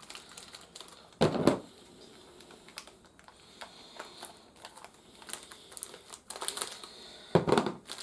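Light clicking and rustling of plastic toy parts and packaging being handled, with two louder brief rustles, one about a second in and one near the end.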